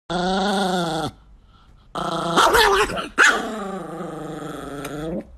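Chihuahua growling in three grumbles, the annoyed growl of an irritated dog. The first lasts about a second, the second is louder and more broken, and the third is about two seconds long and slowly falls in pitch.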